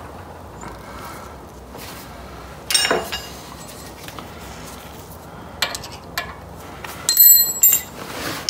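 Metal tools clinking and ringing as they are handled: one sharp clink about three seconds in, then several ringing clinks close together near the end.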